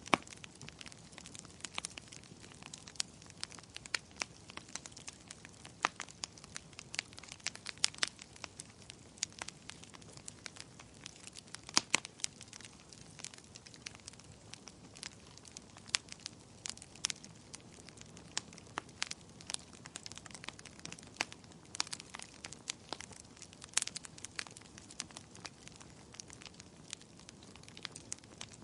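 Wood fire crackling in a fireplace: irregular sharp pops and snaps over a faint hiss, with a few louder snaps scattered among them.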